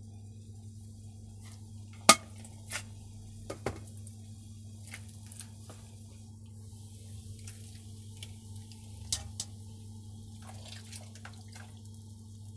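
Scattered clicks and light clinks of kitchen utensils, a metal mesh strainer of wet noodles and a plastic measuring spoon against a wok, with a few drips. One sharp click about two seconds in is the loudest. A steady low hum runs underneath.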